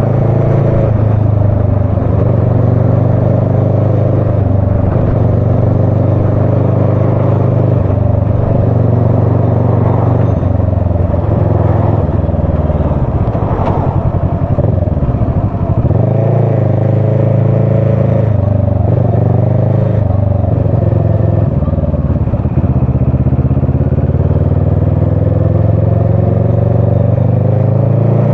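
Motorcycle engine running at low revs, heard from the saddle, its note wavering as the throttle is eased on and off; near the end the revs rise steadily as the bike accelerates.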